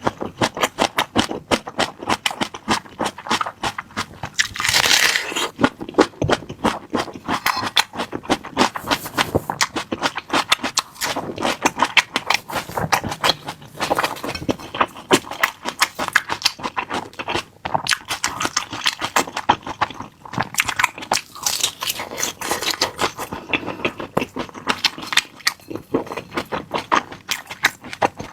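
Close-up eating sounds: crunching and chewing of an air-fried chicken leg roll with crisp, charred skin. There are many quick crackles and crunches without a break.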